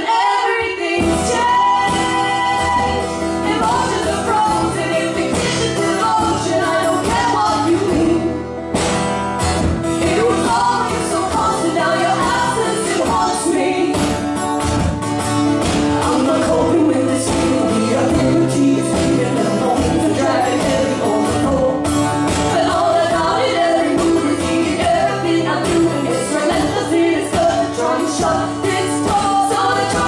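Two women singing live to two strummed acoustic guitars.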